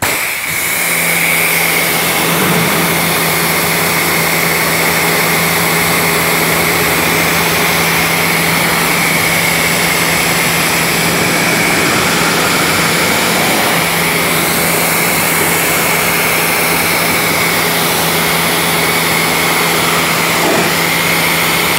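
Pressure washer running, a steady motor hum under the hiss of its water jet, as it rinses mud and grit off a car's paint. It starts and cuts off abruptly.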